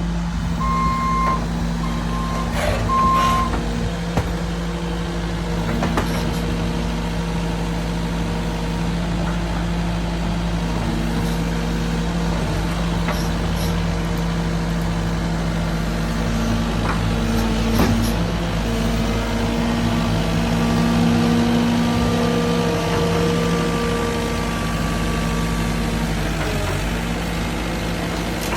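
Heavy diesel machinery engine running steadily, with a reversing alarm beeping three times in the first few seconds and a few scattered knocks.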